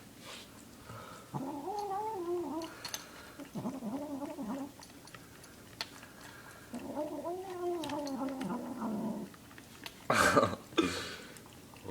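Domestic cat making odd, wavering yowl-like noises while eating its food: three drawn-out calls that warble up and down in pitch, the last the longest. A short, loud noisy burst follows near the end.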